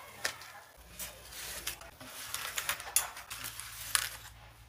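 Metal grill tongs and a spatula clicking and clattering against aluminium foil trays as the trays of vegetables are lifted and set down on a wooden board: a string of short, sharp clicks, several close together in the middle.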